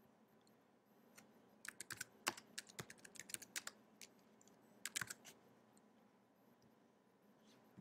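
Typing on a computer keyboard, faint: a quick run of keystrokes lasting about two seconds, then a short second burst of keys about a second later.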